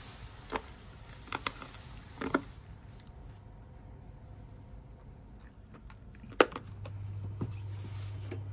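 A few short, sharp clicks and taps of small objects being handled, the loudest about two-thirds of the way through, then a low steady hum comes on near the end.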